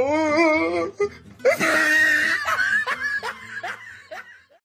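Laughter, most likely an added comedy laugh effect: a high, wavering laugh that bursts out and then trails off toward the end.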